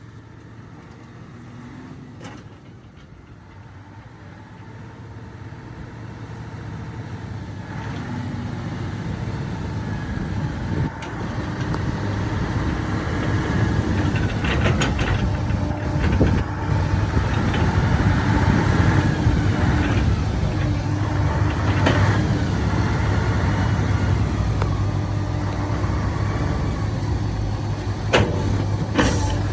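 Heavy diesel engine running, growing louder over the first twenty seconds or so and then holding steady, with a few sharp metallic clanks and knocks.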